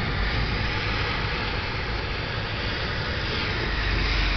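Thunderstorm: steady hiss of heavy rain over a continuous low rumble of rolling thunder, swelling slightly near the end.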